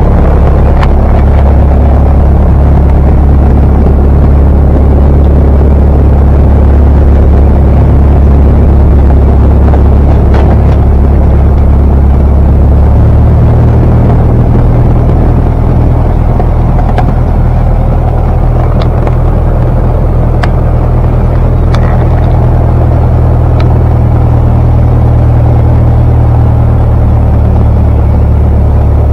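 Cessna 172's piston engine and propeller running on the ground, heard from inside the cabin as a loud, steady low drone. About halfway through, the drone steps up to a slightly higher pitch as the engine speed changes.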